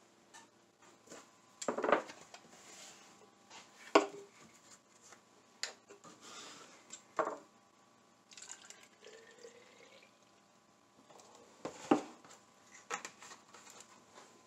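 Milk replacer poured from a plastic gallon jug into a plastic baby bottle, the filling sound rising steadily in pitch as the bottle fills, from about eight to ten and a half seconds in. Before and after it come several sharp knocks as the jug and bottle are handled and set down on the countertop, the loudest about four seconds in.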